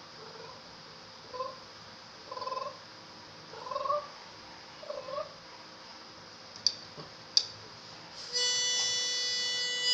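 A Jack Russell terrier gives about five short, slightly rising whines as it sings along, then a harmonica sounds a steady held chord from near the end.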